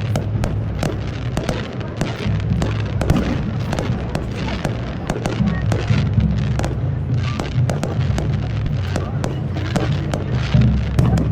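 Fireworks display: a dense, irregular run of sharp bursts and crackles, several a second, over a continuous low rumble of shell explosions.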